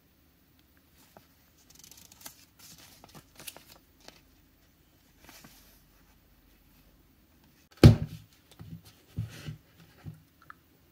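Paper pages of a small instruction booklet rustling softly as they are turned. Then one loud knock on the wooden bench about eight seconds in, followed by a few lighter knocks as the hard plastic battery pack is handled.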